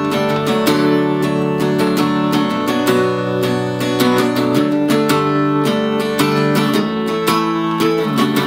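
Tanglewood acoustic guitar strummed in a steady rhythm, its chords ringing.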